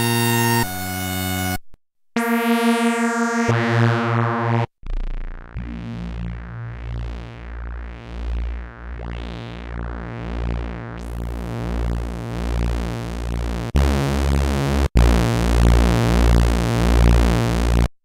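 Behringer Vintage software synthesizer playing lead presets: a few held notes that each start and stop abruptly. From about five seconds in comes one long low note whose brightness swells and fades about once a second, then two more held notes near the end.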